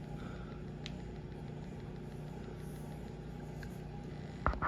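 Steady low mechanical hum, like a motor running, with two sharp knocks near the end.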